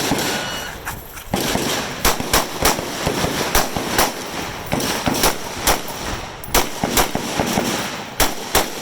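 Rifles firing on a match firing line: a run of sharp shots from several shooters, irregularly spaced at about two a second, starting about a second in.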